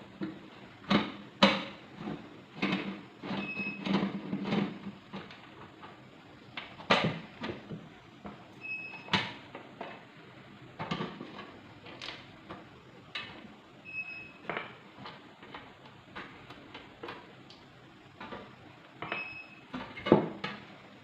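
Irregular clicks, knocks and clatters of a rice cooker being taken apart by hand: its screws being undone and the plastic casing handled and lifted off.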